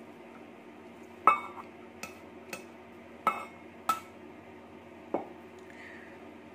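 Metal ladle clinking against a stainless steel mixing bowl: about six sharp clinks with a brief ring, the loudest about a second in.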